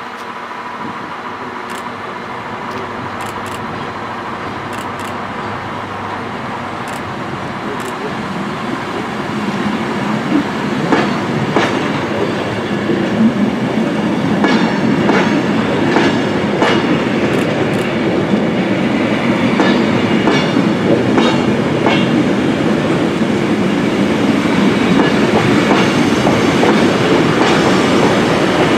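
Train of Mk2 passenger coaches rolling past close by, with a steady rumble of wheels on rail. About ten seconds in it grows louder, and the wheels start clacking repeatedly over rail joints and pointwork.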